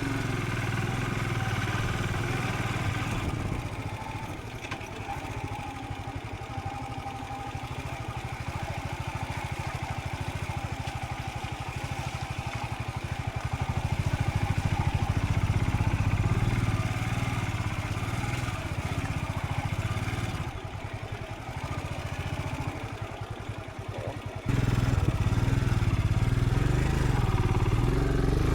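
Royal Enfield Scram 440 single-cylinder engine running under way, with road and wind noise. The engine's level rises and falls a few times with the throttle and jumps suddenly louder near the end.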